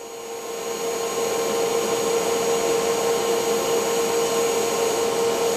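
TIG welding arc burning steadily while the torch is walked around a machined steel sprocket, fusing it to an axle. It is a continuous hiss with a steady hum under it. It grows louder over the first second or so, then holds steady.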